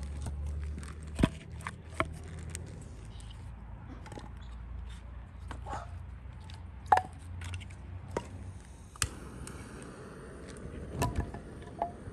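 Split firewood logs set into a soil pit, knocking against each other in a series of sharp, separate wooden clunks, over a low steady rumble that fades about halfway through.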